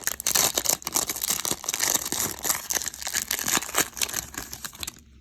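Wrapper of a Panini Select baseball card pack being torn open and crinkled by hand, a dense run of crackles that stops suddenly about five seconds in.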